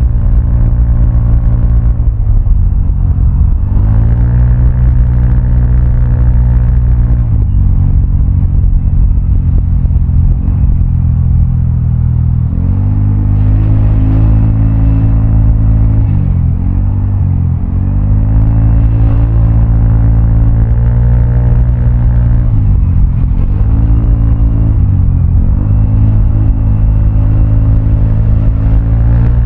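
Vespa automatic scooter's single-cylinder four-stroke engine running through a Prospeed black CNC aftermarket exhaust while riding. The throttle is opened and closed repeatedly, so the engine note climbs and drops back several times, with a dip about seventeen seconds in.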